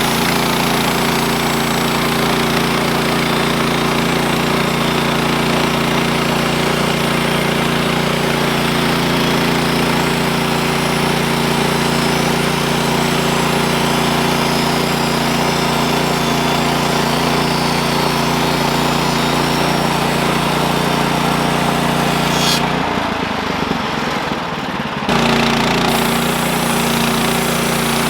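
Portable bandsaw sawmill running with its small gasoline engine at a steady speed, the blade sawing through a log. About 23 seconds in the high hiss drops away for a couple of seconds, then the full sound comes back.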